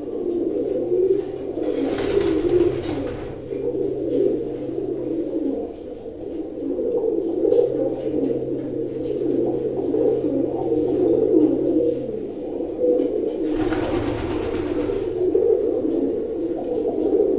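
Domestic pigeons cooing continuously, a low rolling coo. Two brief bursts of noise break in, about two seconds in and again about fourteen seconds in.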